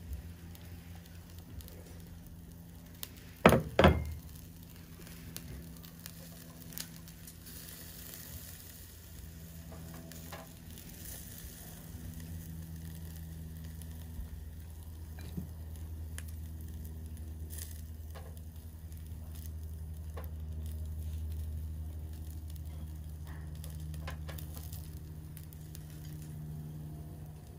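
Meat sizzling on the wire grill of a small box-shaped BBQ stove, with faint crackling and scattered small ticks. Two sharp knocks about three and a half seconds in are the loudest sounds. A steady low hum runs underneath.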